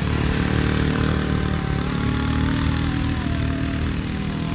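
Quad bike engine running steadily as the ATV drives over sand, its pitch rising and falling a little.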